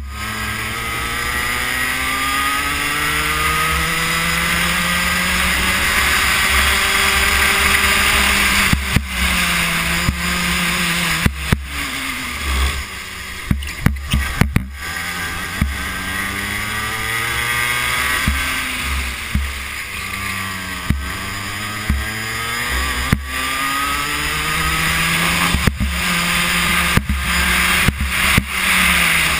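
Racing kart engine heard from on board at full racing pace, its pitch climbing for several seconds on each straight and dropping back into the corners, again and again, over a rush of wind noise. Clusters of sharp knocks come about ten seconds in and again near the end.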